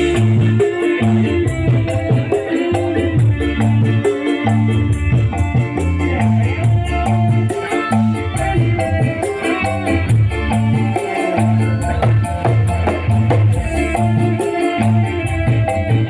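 Drum band playing dangdut koplo music: a steady repeating low beat under a pitched melody, with shaker-like percussion running through it.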